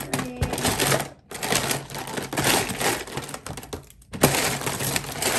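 Plastic highlighters and pens clattering and clicking together as a hand rummages through a container of supplies, in several busy spells of rapid clicks with brief pauses.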